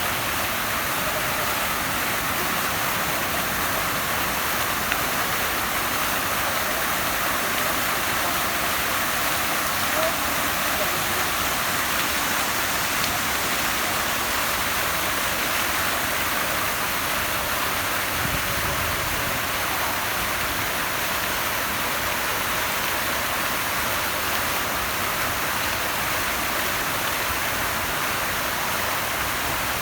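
Steady rushing water, an even hiss with no pauses or changes.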